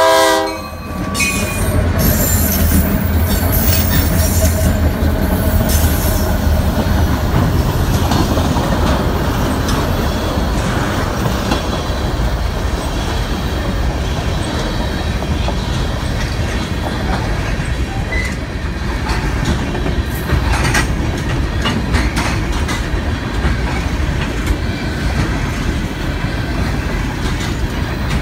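A diesel locomotive horn chord cuts off just under a second in. Then three EMD SD40-2 diesel locomotives pass close by with a deep engine rumble, followed by a long string of tank cars rolling past with steady wheel-on-rail noise and the clickety-clack of wheels over rail joints.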